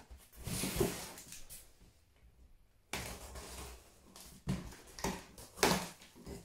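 Packing tape on a cardboard box being cut and the flaps worked open: scraping, tearing and rustling of cardboard in short bursts, with a brief pause about two seconds in and the sharpest tear near the end.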